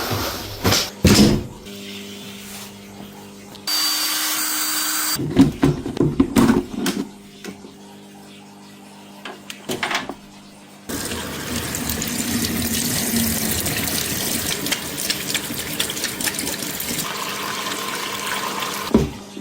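Water rushing into an LG washing machine as it fills, in two spells, a short one and then a long steady one of about eight seconds. Knocks and clicks from handling the machine come before and between them.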